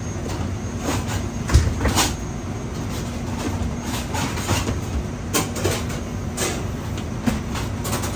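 A steady low rumble with a faint hum under it, broken by scattered clanks and knocks, about ten in all.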